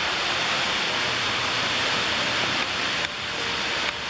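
Steady rushing of falling water from an underground waterfall in a storm tunnel, an even hiss with no let-up.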